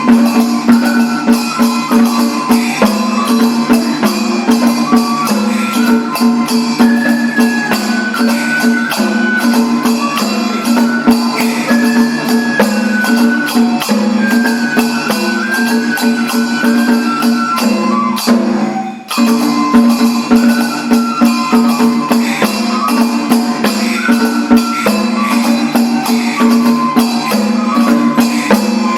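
Kagura accompaniment music: a stepping melody over drums and rapid jingling percussion, with a brief break about two-thirds of the way through.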